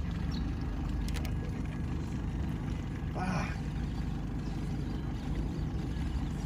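Boat's outboard motor running steadily at low speed, a low hum, with a couple of faint clicks about a second in and a short voice-like exclamation about halfway through.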